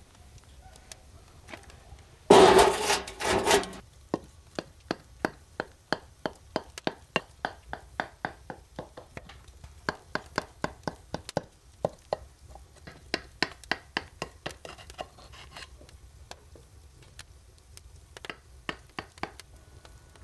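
Knife chopping food on a cutting board, a steady run of sharp strokes about three a second that thins out near the end. About two seconds in there is a short, loud noisy burst lasting about a second and a half.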